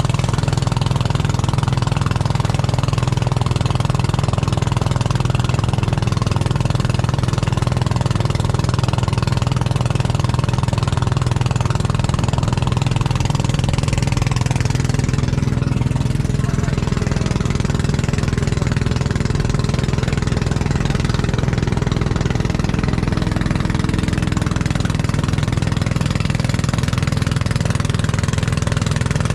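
Engine of a motorized bangka (outrigger boat) running steadily as it tows a raft, with water churning in its wake.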